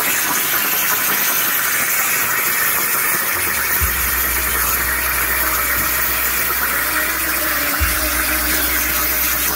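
CNC plasma torch cutting 4 mm metal plate at 60 amps, its compressed-air arc giving a loud, steady hiss. A low hum comes in about a third of the way through.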